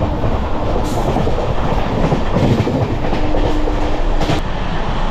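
Passenger train running at full speed, heard from aboard a coach: steady rumble and clatter of the wheels on the rails. Near the end, a steady hum joins briefly and then cuts off suddenly.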